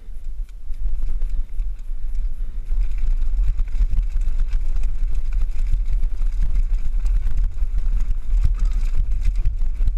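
Mountain bike rattling and clattering over a rough, stony track, with wind rumbling on the camera microphone. The clatter and rumble grow louder about three seconds in.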